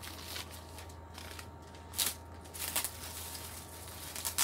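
Plastic packaging rustling and crinkling as wrapped items are handled and moved, in a few short bursts about two seconds in and again near the end, over a steady low hum.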